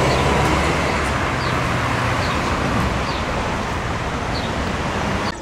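Road traffic: a motor vehicle's engine running close by over steady road noise.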